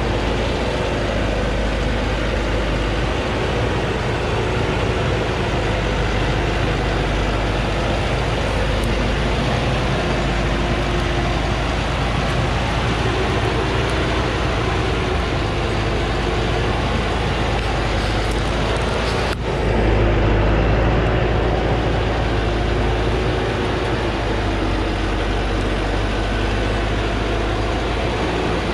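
Diesel engine of a Thaco Forland truck loaded high with acacia logs, running steadily under heavy load as it crawls up a steep dirt track. About two-thirds of the way through there is a sudden break, after which the engine sound is louder and deeper for a few seconds.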